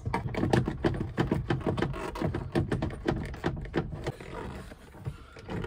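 Quick, irregular clicks, knocks and scrapes of a plastic door panel and trim on a 1998 Chevy truck being worked loose with a screwdriver. The clicks thin out and grow quieter about four seconds in.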